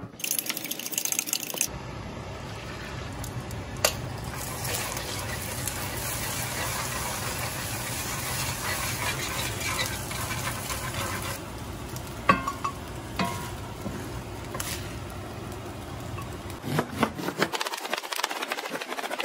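Eggs sizzling and being stirred as they scramble in a cast-iron skillet, a steady frying hiss. Near the end come quick knife chops on a wooden cutting board as Chinese chives are cut.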